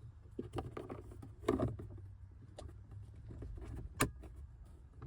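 Plastic dashboard trim panels being handled and fitted back into place, with scattered clicks and knocks and a sharp snap about four seconds in, over a low steady hum.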